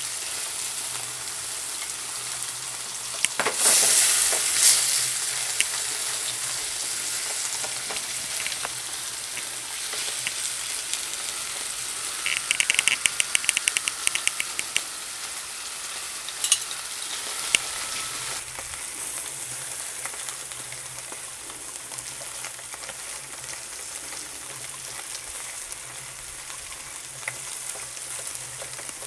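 Beef chops sizzling on a charcoal grill, with a louder surge of sizzling a few seconds in and a short run of rapid clicks about halfway through.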